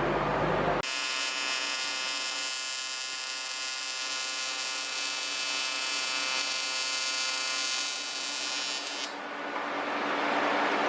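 AC TIG welder arc buzzing steadily on aluminum, switching on abruptly about a second in and cutting off about two seconds before the end.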